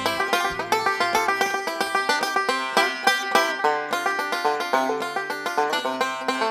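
Instrumental background music: a fast run of plucked string notes in a banjo-style, bluegrass-like picking pattern, with little bass.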